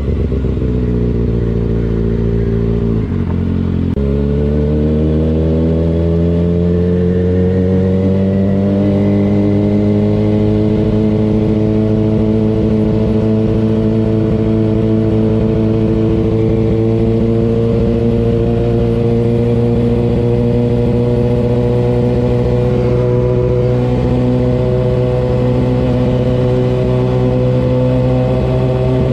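Kawasaki ZX-6R 636 inline-four engine under way. The revs fall and break off about three seconds in, as at a gear change, then climb for several seconds and hold steady at a cruising pitch, easing off right at the end.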